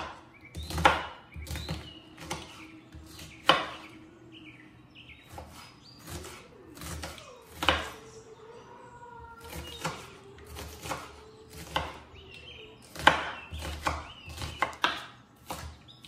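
Kitchen knife chopping an onion finely on a bamboo cutting board: irregular taps of the blade on the wood, with a few louder strikes among them.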